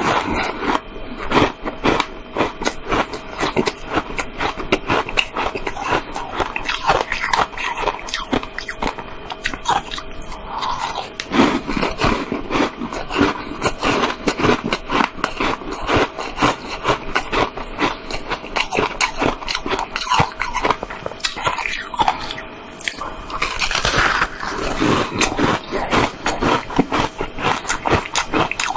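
Close-up crunching and chewing of frozen, coloured ice shaped like a layered cake, bitten and chewed continuously with dense rapid crunches and cracks, picked up close by a clip-on microphone.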